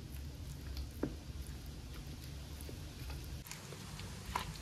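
Faint wet squishing and a few light clicks from a hand mixing a yogurt and spice marinade into raw chicken drumsticks on a plate, over a low steady hum.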